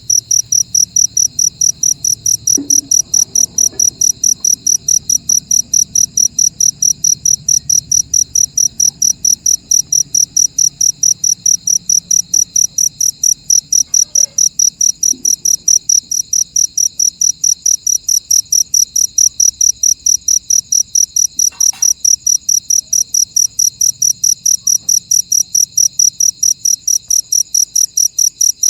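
A cricket chirping loudly and close, in short, even chirps at about three a second with no let-up.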